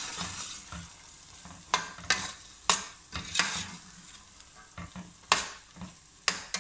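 Long stainless steel spoon stirring green peas through a hot, oily tomato-and-spice masala in a stainless steel pot. It scrapes and knocks against the pot in about six sharp strokes, spaced unevenly, over a faint sizzle.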